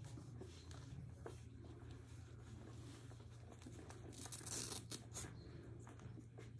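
Faint rustling and scratching of young puppies and a hand moving on a terry-cloth towel, louder for a moment about four seconds in, over a low steady hum.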